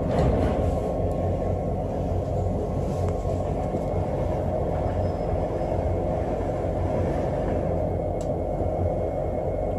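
Running noise of a British Rail Class 365 electric multiple unit heard from inside the carriage: a steady rumble of wheels on rail, briefly louder in the first second.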